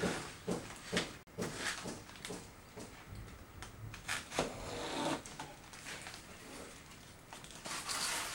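Plastic sheeting crinkling and rustling as it is handled and smoothed over a floor, in a run of short, irregular crackles and scrapes.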